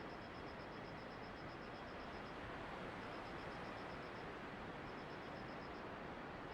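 Steady rushing of typhoon wind, with an insect chirping faintly through it in quick, even trains of about eight pulses a second, pausing briefly between trains.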